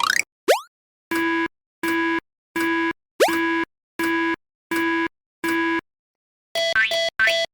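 Two quick rising cartoon whistle slides, then an electronic railroad crossing alarm beeping a steady pulsed tone, seven beats at about one and a half per second. Near the end a faster, higher-pitched beeping begins.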